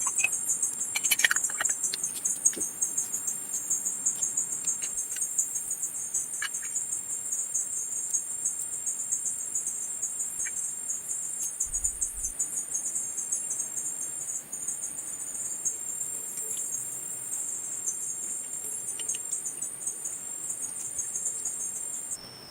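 A chorus of insects chirring steadily in one high, even band, with a few faint clicks and taps in the first couple of seconds. The chorus cuts off suddenly just before the end.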